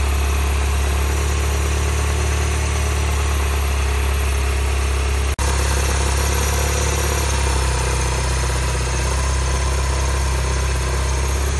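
Mini Cooper S R56's 1.6-litre turbocharged four-cylinder engine idling steadily, its newly replaced water pump and accessory belt turning. The sound drops out briefly about five seconds in.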